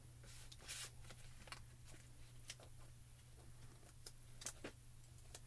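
Faint scattered clicks, taps and a short scrape as stamping supplies and paper are handled on a craft desk, over a steady low hum.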